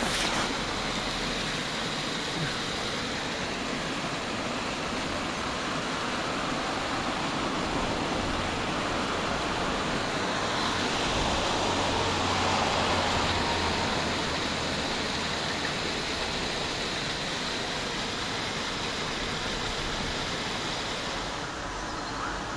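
Brook water spilling over a small concrete weir: a steady rushing, a little louder about halfway through.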